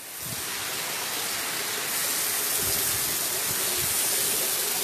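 Steady rush of water from heavy rain and flooding, an even hiss that swells in just after the start and grows louder about two seconds in.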